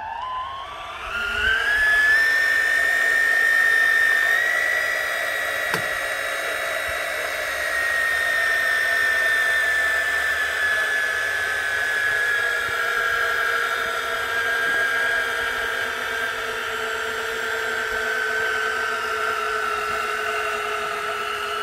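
Battery-powered caulking gun motor whining as it drives a bead of urethane windshield adhesive onto the glass. It spins up with a rising whine over the first couple of seconds, then runs steadily, its pitch slowly sagging as it keeps pushing.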